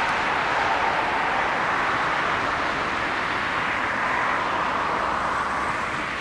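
Boeing 767-300ER's twin turbofan engines at takeoff thrust during the takeoff roll: a steady rush of jet noise that eases a little near the end.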